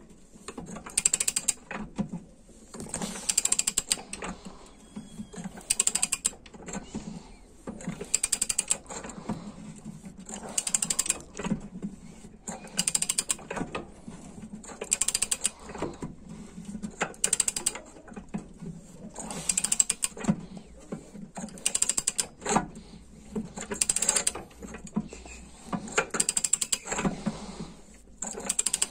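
Socket ratchet worked in repeated strokes, its pawl clicking in a short burst about every two seconds as the handle swings back, driving a part home.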